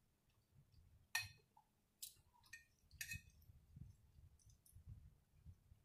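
Faint clicks and smacks of someone eating soup with a metal spoon from a glass dish: a few sharp clicks about one, two and three seconds in, then softer ticks, over near silence.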